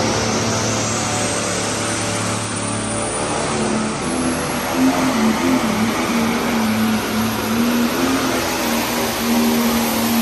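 Turbocharged diesel engine of a Light Pro Stock pulling tractor running hard under load on a pull, a steady loud drone whose pitch wavers from about four seconds in, with a high whine rising in pitch over the first couple of seconds.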